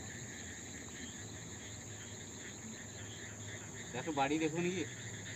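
Crickets chirping in a steady, high-pitched night chorus.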